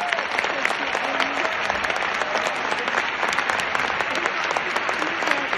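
Large audience applauding: many hands clapping densely and steadily.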